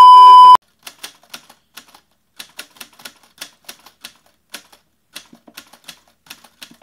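A loud, steady test-card beep of about 1 kHz (TV colour-bar tone) cuts off about half a second in. It is followed by a typewriter sound effect: irregular key clacks, about three to four a second.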